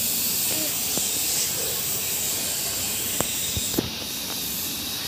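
Steady high-pitched hiss that sets in suddenly just at the start, with a couple of faint clicks near the middle.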